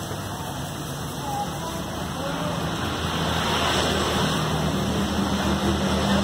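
Steady street noise with a vehicle engine running, its low hum growing stronger in the second half.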